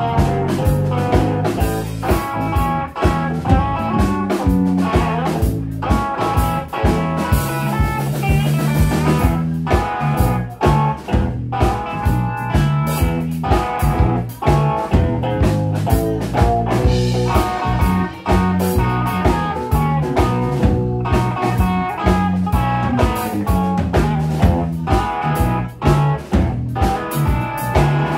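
Live electric blues band playing an instrumental passage: electric guitar over bass guitar and a drum kit keeping a steady beat.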